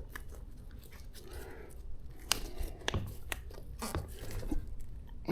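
Hands working an e-bike tire on its rim: scattered sharp clicks and crackly rubbing as the tire and bead are handled, with several distinct clicks a couple of seconds in.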